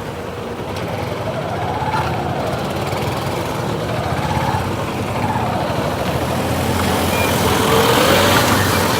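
Motorcycle engine running under way, its pitch rising and falling with the throttle over a steady rushing noise.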